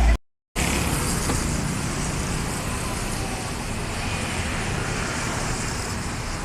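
Steady road traffic noise of vehicles passing on a busy street, with no horn sounding. The sound cuts out completely for a moment near the start before the traffic noise resumes.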